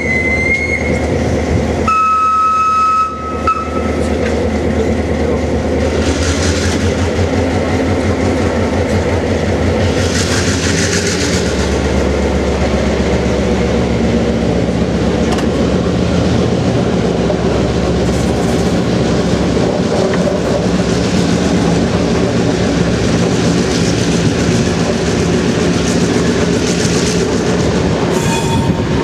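NOHAB-built DSB MY class diesel-electric locomotive MY 1101, its GM EMD 567 V16 two-stroke diesel running steadily under load while pulling the train, heard from the coach behind. Two short horn blasts sound near the start, the second lower in pitch.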